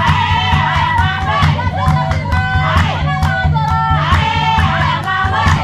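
A group of villagers singing a chant together over rhythmic hand-clapping at about three claps a second, accompanying a traditional warrior dance.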